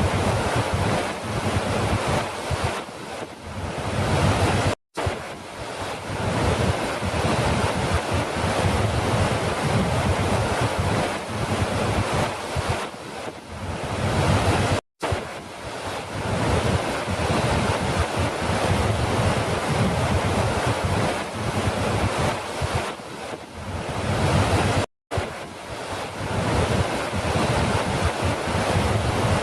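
Falling water rushing steadily, a dense continuous roar. It is a loop: the sound drops out for an instant three times, about ten seconds apart.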